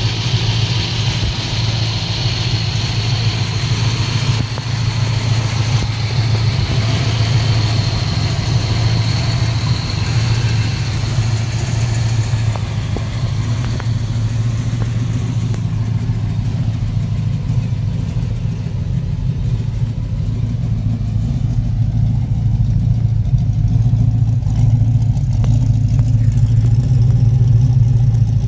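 1972 Dodge Challenger's V8 idling steadily, getting a little louder near the end as the exhaust tips come close.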